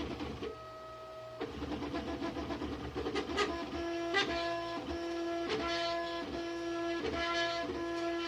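Bambu Lab A1 3D printer running, its motors giving a steady pitched whine that is broken by short clicks and pitch changes every half second or so as moves change. Along with the usual tearing sound there is a strained, electrical-sounding noise that has newly developed, and whose cause is unknown.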